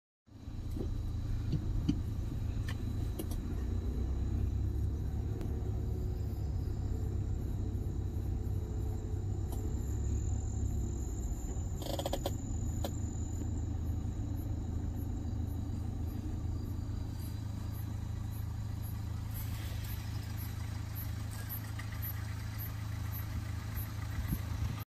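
Car engine and road rumble heard from inside the cabin, a steady low drone, with a few faint clicks and one short sharper sound about halfway through.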